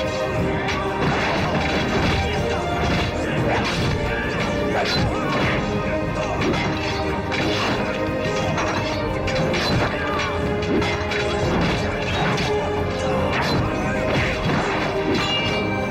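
Fight-scene sound effects, with a rapid run of blows, hits and crashes, over a dramatic music score.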